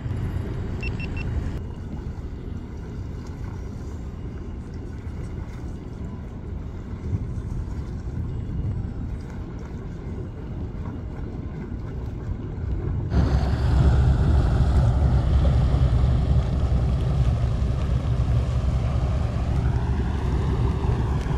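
Twin MerCruiser 6.2 V8 inboards of a Cruisers 340 Express running at slow harbour speed, a steady low rumble. About two-thirds of the way through it becomes louder and fuller, with wind rumbling on the microphone.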